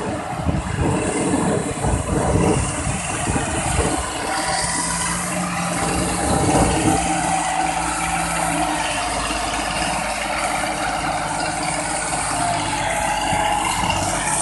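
Tractor diesel engine running with a clattering, ratcheting mechanical rattle. About four seconds in, a steady low hum joins the noise.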